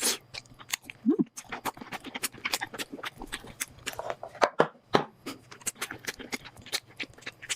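Close-microphone mukbang eating sounds: irregular crunching and wet mouth clicks from chewing a frozen treat.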